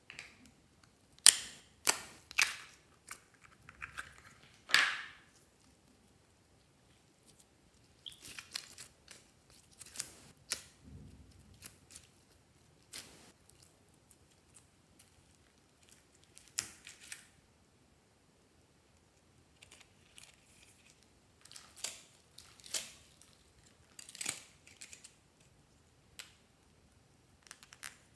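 Small plastic containers and slime being handled by hand: scattered sharp plastic clicks and snaps, some loud, with short quiet gaps between them.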